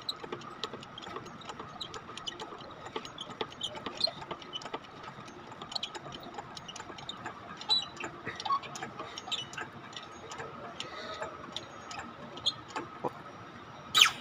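Workshop ambience: scattered, irregular light metallic clicks and taps over a faint steady high whine, with one sharp metal clank near the end.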